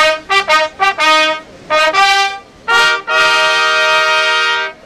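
Brass fanfare: a run of short, separate notes, then a long held chord starting about three seconds in that cuts off near the end.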